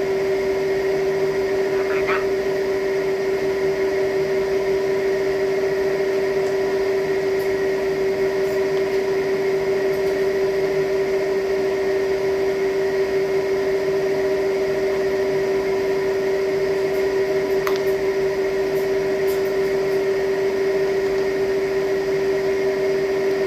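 A steady machine hum at one constant pitch, with an even hiss under it and a couple of faint clicks.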